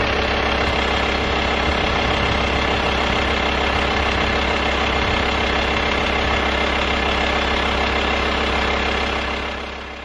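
A camper van's engine idling steadily, a low rumble with a steady hum above it, easing off slightly near the end.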